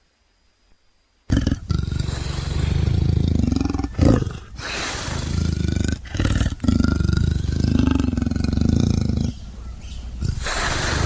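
Big-cat roaring and growling sound effects voicing the extinct cat Panthera shawi. After about a second of near silence, a string of loud, rough roars follows, broken by a few short pauses.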